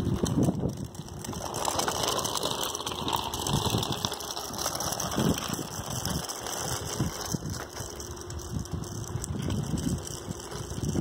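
Bicycle rolling along a paved path, its freewheel ratcheting and the frame rattling, with irregular clicks and knocks throughout.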